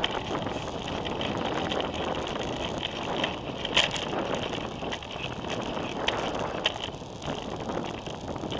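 Ride noise from a bicycle-mounted camera: wind on the microphone and tyre and road noise, with street traffic behind it. A few sharp clicks break through, the loudest about four seconds in.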